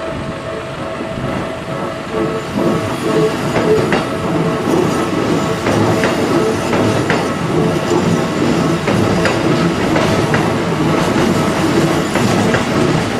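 Keikyu 600 series and 1000 series electric train, twelve cars, running over a level crossing, its wheels clacking sharply over the rail joints. The train grows louder about two seconds in.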